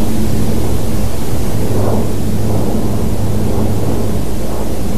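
Airplane flying over: a steady low engine drone with a constant hum, swelling and easing slightly.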